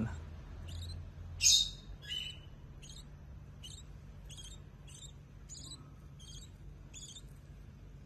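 Lovebird chick peeping: a string of short, high chirps about twice a second, the loudest about one and a half seconds in.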